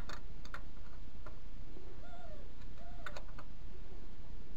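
Scattered light clicks and knocks, about half a dozen, from tools and containers being handled during a tractor oil change, over a steady low background rumble.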